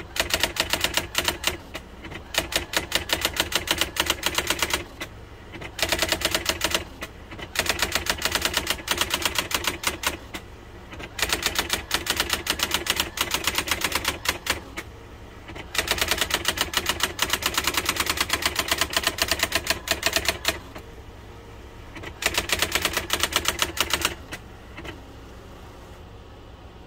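Brother electric typewriter typing in quick runs of rapid keystrikes, with short pauses between runs. The machine's steady motor hum runs underneath and carries on after the typing stops near the end.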